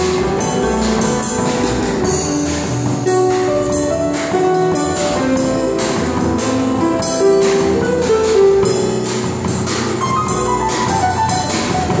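Live instrumental band music: grand piano with electric and acoustic guitars, over a steady percussive beat.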